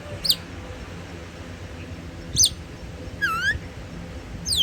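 African grey parrot giving short, sharp whistles that sweep steeply down in pitch, three of them about two seconds apart. Between the second and third comes a lower call that dips and then rises.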